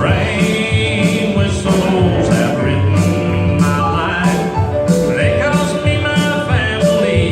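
Live band music with a man singing lead over a bass line and a steady drum beat.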